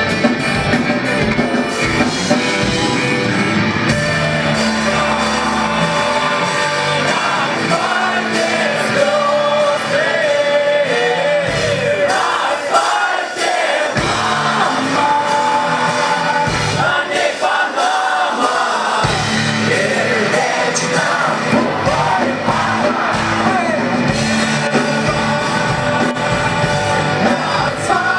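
Rock band playing live with a male lead vocalist singing; the voice comes in about eight seconds in over the full band, with audience shouts in the mix.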